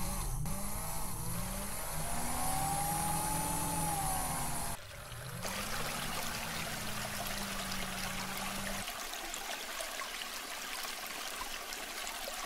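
Small homemade DC-motor water pump running with a whine that rises and falls in pitch, while water trickles from a plastic hose into a small plastic tank. About nine seconds in the motor whine stops and only the trickle of water goes on.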